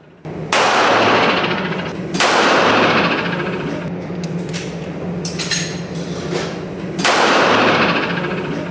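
Three gunshots from a .22 WMR folding pocket revolver (Switch Gun): about half a second in, about two seconds in, and again about seven seconds in. Each shot is followed by a long ringing echo that fades out.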